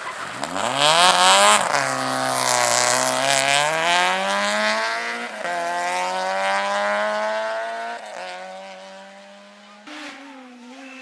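Citroën Saxo rally car accelerating hard out of a tight turn and away. The engine note climbs and drops back at upshifts about a second and a half in, at about five seconds and at about eight seconds, fading as the car pulls away. Tyres squeal briefly as it leaves the corner.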